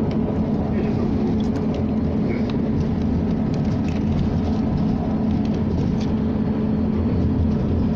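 SOR EBN 10.5 city bus heard from inside the cabin while driving: a steady diesel engine drone with road noise and a few light rattles.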